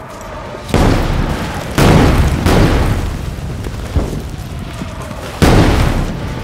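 Artillery shells exploding: five blasts in quick succession, each with a heavy boom that dies away over a second or so. The one about four seconds in is lighter than the others.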